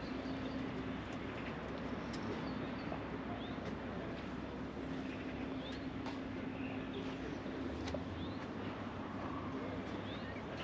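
Small birds chirping now and then over a steady outdoor background hum, with a low drone that fades in and out.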